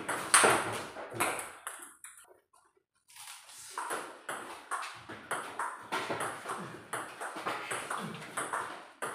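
Table tennis rally: the celluloid-type ball clicking off rubber paddles and the tabletop in quick alternation, with a break of about a second a third of the way in before the rally clicks resume.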